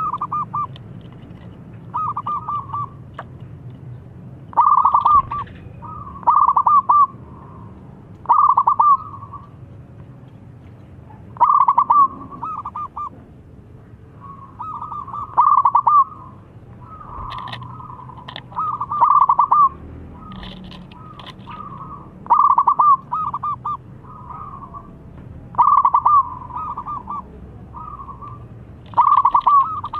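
Zebra dove (perkutut) cooing: short phrases of quick, stuttering coo notes, repeated about every two to three seconds, roughly a dozen times.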